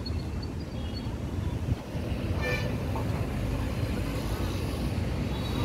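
Steady low rumble of passing road traffic, with a brief horn toot about two and a half seconds in.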